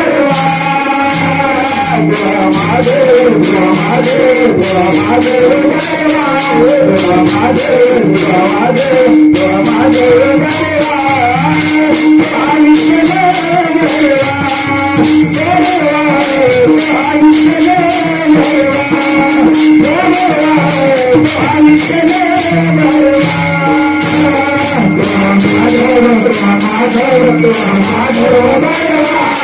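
Marathi devotional bhajan: a gaulan sung by a male lead singer in a wavering melody over a steady held drone, with continuous rhythmic jingling percussion.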